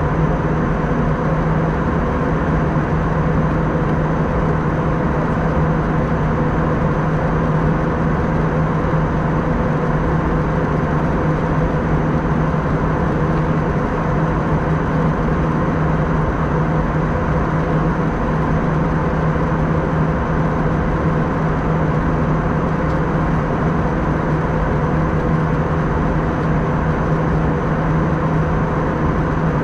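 Steady cabin noise of an Airbus A320 in flight: a constant rush of airflow with a steady engine hum and drone underneath.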